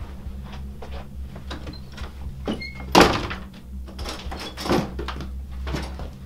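A door thudding, loudest about three seconds in, among several smaller knocks, over a steady low hum.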